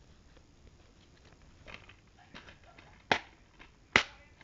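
Two sharp plastic clicks about a second apart, the second near the end, with faint rustling before them: movie disc cases being handled.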